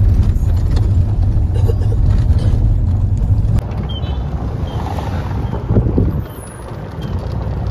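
Vehicle ride noise: a loud, steady low rumble from inside a car or van, then, after a sudden cut about three and a half seconds in, quieter wind and road noise riding in an open-sided cart.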